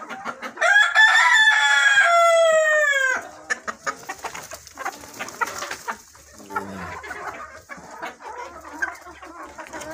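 A rooster crows once, loud and about two and a half seconds long, starting about half a second in, its pitch dropping at the end. Then a flock of desi hens clucks on more quietly.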